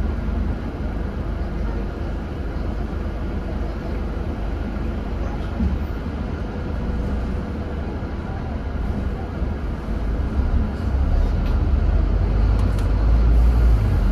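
Scania N230UD double-decker bus's five-cylinder diesel engine running at near idle with the bus almost stationary, heard from the upper deck as a steady low rumble. About ten seconds in the engine note grows louder as the bus pulls forward.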